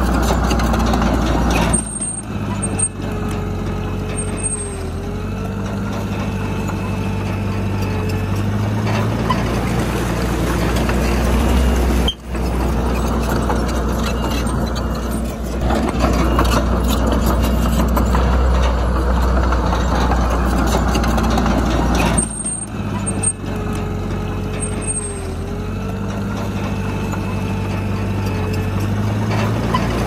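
Komatsu D31PX bulldozer's diesel engine running steadily, a low drone whose pitch and level shift a few times as it works. The sound drops out briefly about twelve seconds in.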